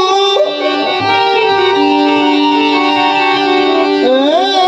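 Instrumental passage between sung lines of a devotional bhajan: a guitar-like melody instrument plays a line of held notes over accompaniment, with a sliding pitch entering near the end.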